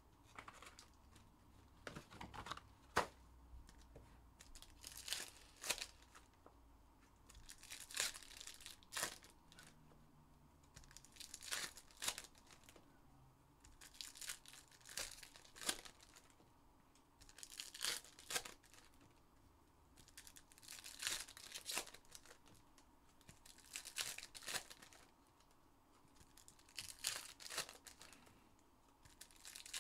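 Foil trading-card packs of Donruss Optic basketball being torn open one after another, the wrappers ripping and crinkling in short bursts about every two to three seconds.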